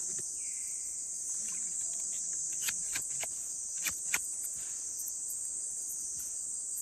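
Steady high-pitched chorus of forest insects, with a few sharp clicks or taps about halfway through.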